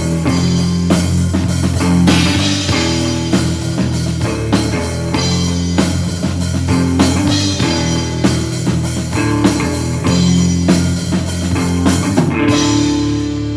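Live rock band playing an instrumental passage: electric guitar and bass guitar over a drum kit. Near the end the drums stop and the guitars ring on, fading.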